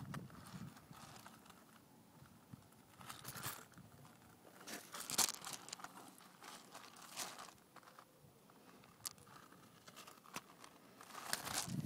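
Faint handling noise: scattered soft rustles and clicks with quiet stretches between them.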